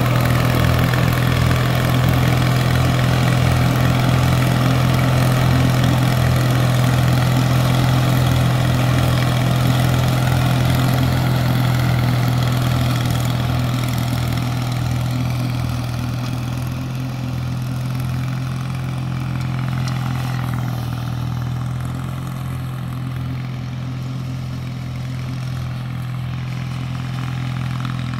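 1980s Allis-Chalmers T816 garden tractor running steadily while mowing, with its 48-inch mower deck engaged. The sound grows fainter from about halfway through as the tractor moves away.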